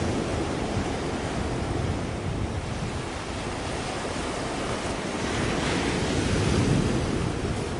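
Sea waves and wind at the shore, with wind rumbling on the microphone; the sound swells louder around six seconds in.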